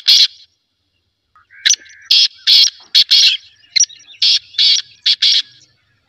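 Black francolin (black partridge, kala teetar) calling in harsh, grating notes. One note comes first, then after about a second's pause two runs of about five notes each, with a short break between them.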